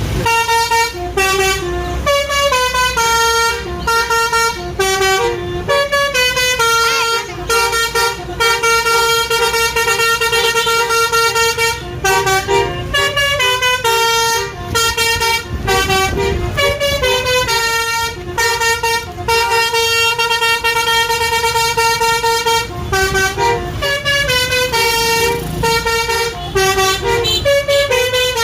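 Basuri musical 'telolet' air horn on a bus playing a long tune of short and held notes, broken by brief pauses.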